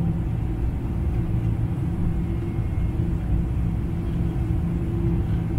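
Cabin noise of a Boeing 747-400 at climb power, heard from a seat behind the wing: its General Electric CF6 turbofans and the airflow give a steady low rumble with a constant hum.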